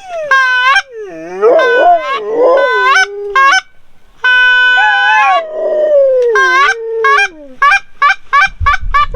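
Geese honking close by: a loud run of calls, some long and falling, others short clipped honks in quick series, with brief pauses between bouts.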